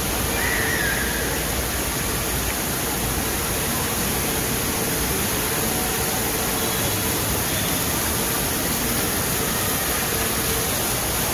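Steady, even roar of an indoor water park: rushing water from the play features and echoing background din, with no single sound standing out.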